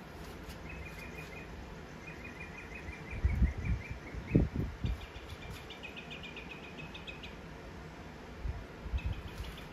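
A small bird singing in short, rapid trills of chirps, repeated four times with a pause between runs. Dull low thumps sound about three to five seconds in and again near the end, and are louder than the song.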